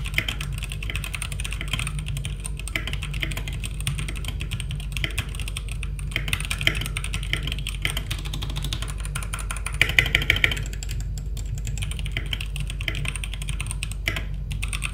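Typing on a Press Play Voyager68 mechanical keyboard with Gateron Brown tactile switches and ABS double-shot keycaps: a fast, continuous clatter of keystrokes, with a louder flurry about ten seconds in.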